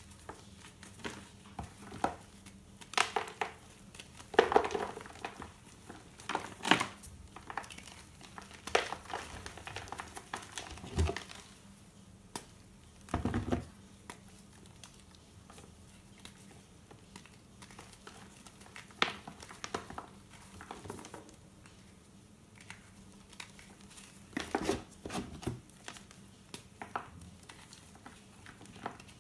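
Reformed gym chalk being crushed and crumbled between bare hands, giving irregular crisp crunches and crackles that come in clusters with quieter pauses between them.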